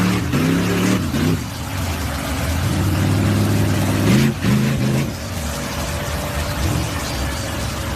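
Jeep Cherokee XJ engine revving hard in surges, pitch rising and falling in the first second or so and again about four seconds in, then running at a steadier, lower pitch, as the Jeep on 44-inch tyres drives through mud.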